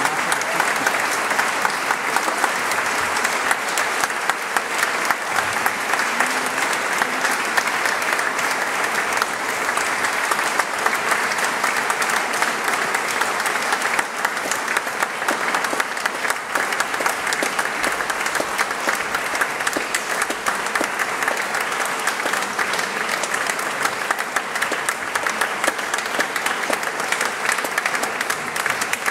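Audience applauding: dense, even clapping that keeps up steadily throughout.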